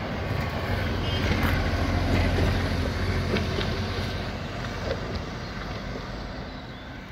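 Articulated city bus driving past and away across a level crossing, its engine and tyres rising to a low hum about two seconds in, then fading as it pulls away.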